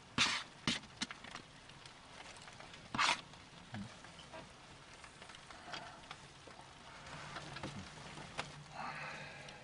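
Cooking-pot and utensil handling: several short clatters and scrapes, then scattered light ticks. A low steady hum sets in about two-thirds of the way through.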